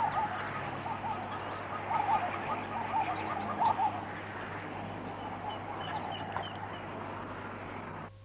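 Many birds chirping together, a dense run of short overlapping calls over a steady low hum, cutting off abruptly near the end.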